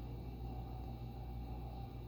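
Emerson K63 Heat Fan ceiling fan motor running at low speed on a decade capacitor set to about 8.4 microfarads, a steady hum.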